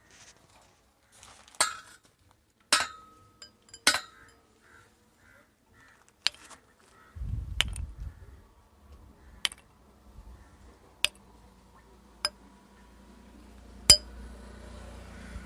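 Metal rods clinking and striking against each other. Three sharp strikes come in the first four seconds, one ringing briefly, then lighter single clinks every second or two, over a low rumble that starts about halfway through.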